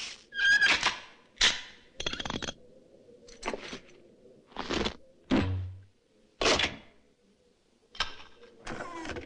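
A quick series of about ten separate metal clunks, clicks and rattles, one every second or so: a chainsaw being clamped onto an arm stump and straps and buckles fastened.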